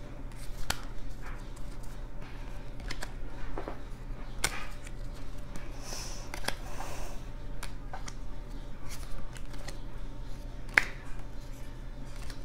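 Pokémon trading cards being taken one at a time off a hand-held stack and laid onto a pile on a table: irregular soft clicks and slaps of card on card, with one sharper click near the end.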